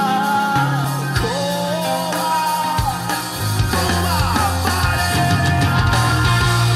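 A rock song with singing played through a pair of Korvet 75AS-001 floor speakers. Partway through it switches from the speakers fitted with modern branded midrange drivers and tweeters to the speakers in their original factory form.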